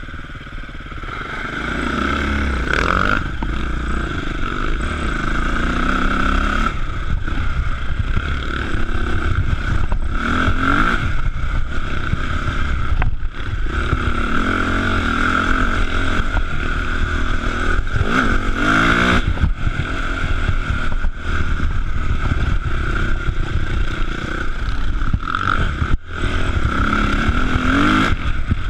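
Enduro motorcycle engine running under load on a forest trail, the revs rising and falling as the rider throttles, with several sharp climbs in pitch. Heard from a camera mounted on the bike itself.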